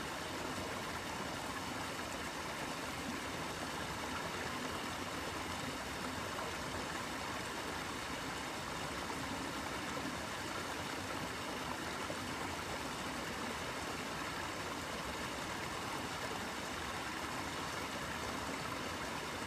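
Small creek cascades running: a steady, even rush of moving water with no breaks or changes.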